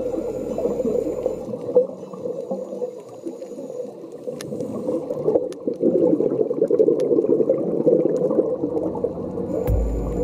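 Muffled underwater water noise picked up by a submerged phone: a churning, gurgling rush with a few faint sharp clicks.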